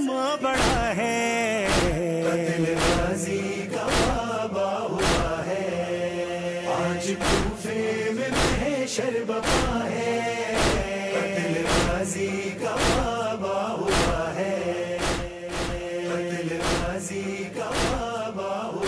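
A noha: a man's voice chanting a mournful Urdu lament, with a backing chorus, over a steady percussive beat about once a second.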